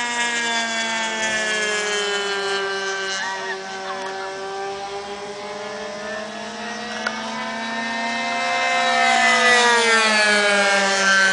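Two radio-controlled model planes' OS .91 glow engines buzzing in a race, each pitch drifting up and down as the planes fly past. One comes close and gets louder about eight seconds in, with its pitch dropping as it passes.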